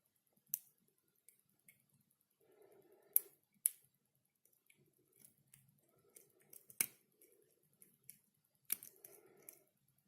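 Lock pick working the pins of a dimple-lock Euro cylinder: soft scraping of the pick inside the keyway, with several sharp, separate clicks, the loudest about three and seven seconds in.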